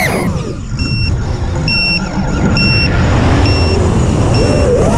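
FPV racing drone's motors and props. The whine drops sharply as the throttle is cut, giving way to a rushing sound, then climbs again near the end as the throttle comes back. A short high beep repeats about once a second.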